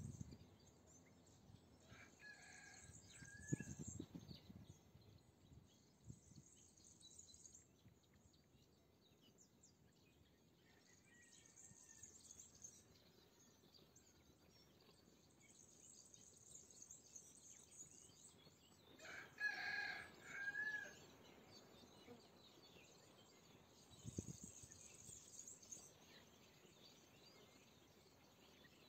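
Faint quiet countryside ambience: a rooster crows, faintly about two seconds in and louder, in two parts, about twenty seconds in. Insects chirr in short high-pitched bursts, and a brief low thump comes about three and a half seconds in.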